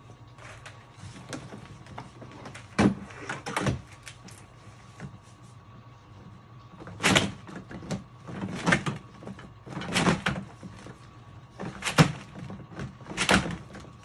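Long flexible drain-cleaning shaft being coiled by hand, its loops rubbing and knocking together in about seven brief, irregular scraping clatters, over a faint steady hum.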